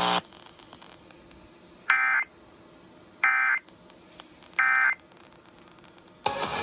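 Emergency Alert System end-of-message signal: three short bursts of SAME digital data tones, each about a third of a second long and about a second apart, marking the end of a weather radio alert. A steady hum cuts off right at the start.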